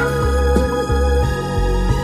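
Instrumental background music with steady held tones over a low bass.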